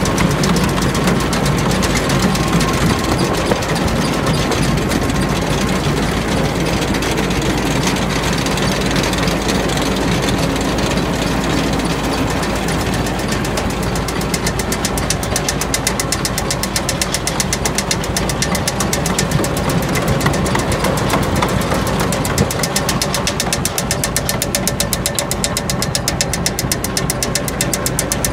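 Engine running steadily with a rapid, even ticking.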